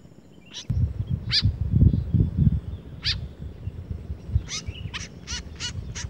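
White-breasted woodswallows calling at the nest: short, sharp high calls, single ones about a second and a half and three seconds in, then a quickening run of them in the last second and a half. A low rumble sits under the calls in the first half.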